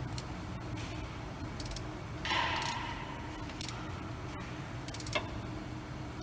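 Hand ratchet clicking in short quick runs while a plug on a Ford Crown Victoria's rear differential is tightened, with a brief scrape about two seconds in, over the steady hum of the shop.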